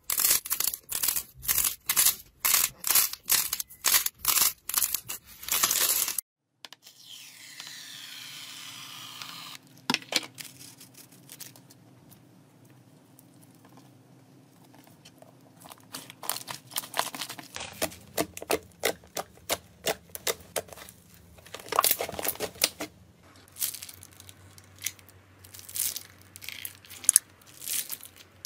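Slime and slime-coated balls squeezed and pressed by hand: a fast run of sharp crackling pops, about three a second, for the first six seconds. After that come quieter wet squishing sounds, then more scattered crackles.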